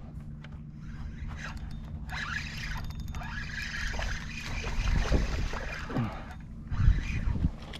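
Fishing kayak on the water: a steady low hum with water trickling, and a few knocks and scrapes of gear against the hull in the second half.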